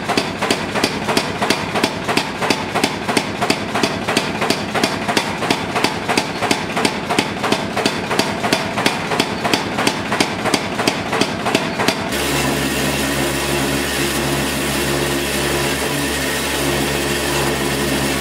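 Hammer blows on the steel of a sword pommel, an even beat of about three to four strikes a second. About twelve seconds in, the hammering stops and an electric power tool's motor starts and runs steadily.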